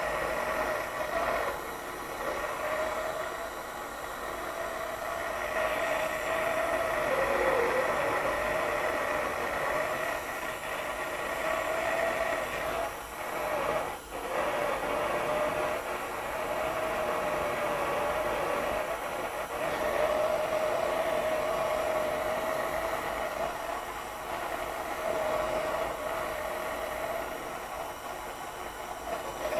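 Heat gun running steadily with a whirring, slightly wavering whine, used to heat the pressed-on harmonic balancer to loosen it from the crankshaft. The whine dips briefly about halfway through.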